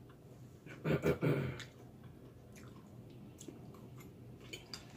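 A person chewing food, with faint scattered mouth clicks. A brief voice sound about a second in.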